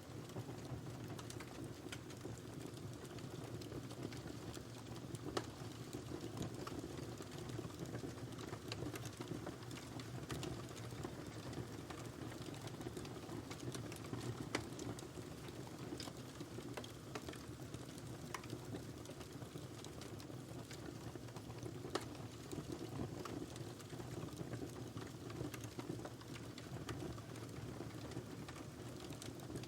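Wood fire burning in a fireplace: a steady low rushing of flames with scattered sharp crackles and pops, a few louder snaps standing out.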